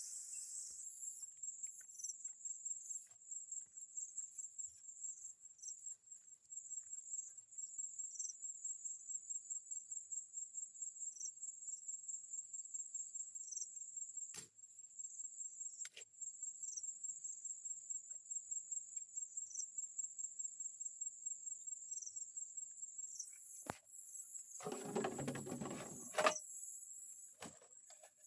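Insects chirping in a fast, even, high-pitched pulse that runs on without a break. Two sharp clicks come about midway. Near the end there is a brief, louder rustling noise that ends in a knock.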